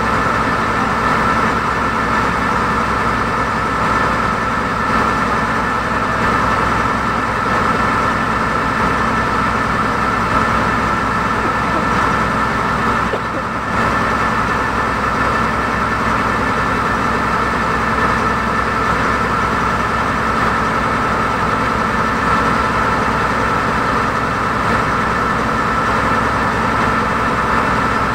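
Engine of a river passenger launch running steadily under way, heard from on board: a constant loud drone with a steady whine over it.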